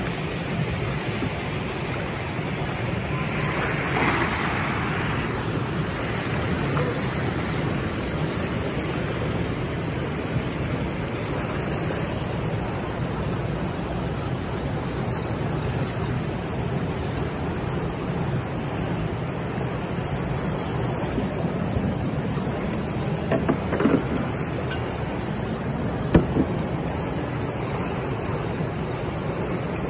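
Steady rush of turbulent, churning water, with a brief louder splash about four seconds in and a few short sharp knocks or splashes near the end.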